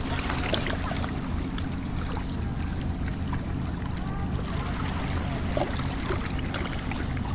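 A steady low engine drone with water lapping and trickling over it.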